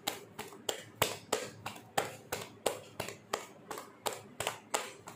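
Pizza dough being slapped and patted flat between the palms: a regular run of soft slaps at about three a second.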